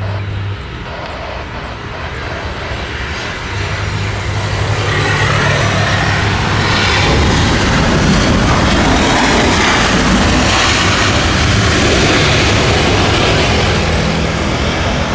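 Jet airliner's engines, a roar of noise that builds from about four seconds in and peaks around the middle, over a steady low hum.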